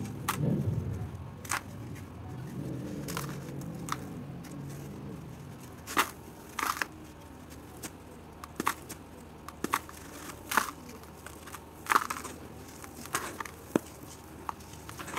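A water-soaked red dirt block crumbled and squeezed by hand in a plastic tub: irregular sharp crackles and crunches as clumps break apart.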